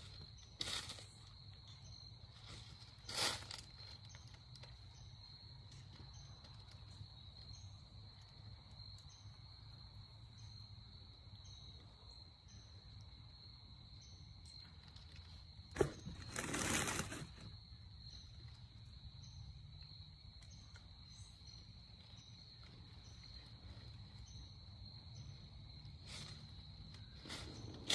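Evening insect chorus of crickets: a steady high-pitched trill with a short chirp repeating about once a second. A few brief rustles break in, the loudest a sharp click and a second-long rustle about sixteen seconds in.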